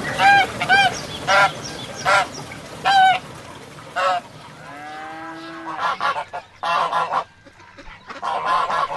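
Goose honking: six short, loud honks in the first four seconds, then a rougher run of overlapping calls that grows quieter near the end.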